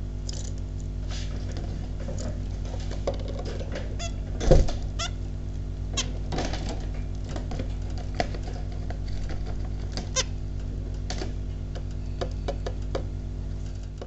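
Caged zebra finches give a few short calls amid scattered clicks and taps of the birds moving on the perch and wire, with a louder knock about four and a half seconds in. A steady low hum runs underneath.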